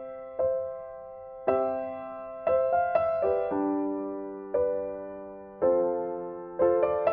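Background music: slow, gentle piano, with notes and chords struck about once a second, each ringing and fading away.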